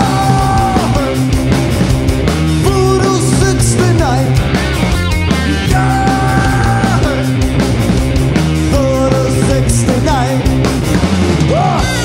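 Live rock band playing electric guitar, electric bass and drums, with a shouted vocal line held briefly near the start and again about halfway through.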